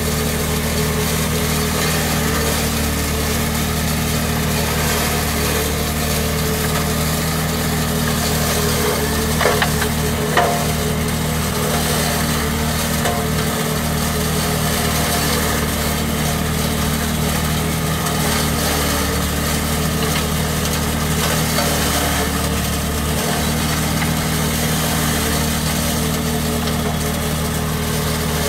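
Engine and spreading machinery of a lime spreader working through an orchard, running at a steady drone with a constant hum. Two short knocks come about nine and a half and ten and a half seconds in.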